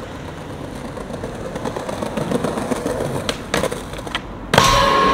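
Skateboard wheels rolling over pavement, a rough rumble that slowly grows louder, with a few sharp clacks of the board about three and a half seconds in. Rock music with guitar and drums cuts in near the end.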